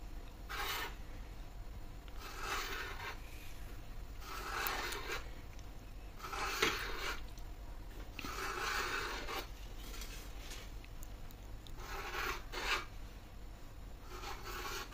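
Kitchen knife drawn through rolled paratha dough, the blade rasping against the surface beneath as it cuts strips. About seven strokes, roughly one every two seconds.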